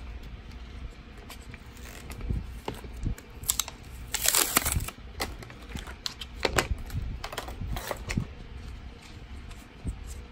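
Clear plastic packaging crinkling and rustling as it is handled and opened, loudest about four seconds in, with a few light clicks and taps of plastic pieces being handled.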